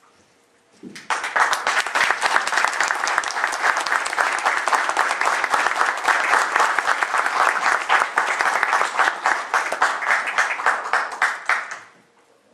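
Audience applauding: a dense, even stream of clapping that starts about a second in and dies away just before the end.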